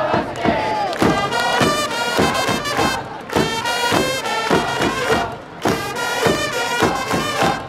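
Trumpets playing a tune over a steady drum beat, with crowd voices underneath.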